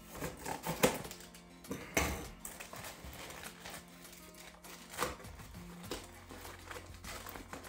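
Packing tape and cardboard being torn off a parcel by hand, in a few sharp rips, the loudest about a second in. Background music with held low notes plays underneath.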